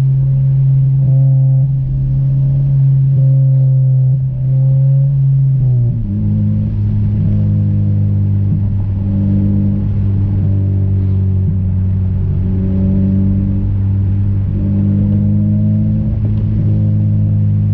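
Modified Honda Civic Si four-cylinder engine and aftermarket Invidia exhaust droning while driving at a steady speed. About six seconds in, the pitch drops in one step, as with an upshift, and then holds steady.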